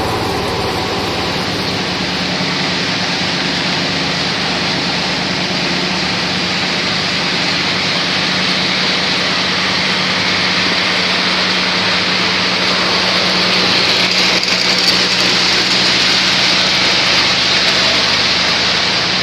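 Coffee husking machine running steadily: a constant motor hum under a dense mechanical hiss, a little louder from about two-thirds of the way in.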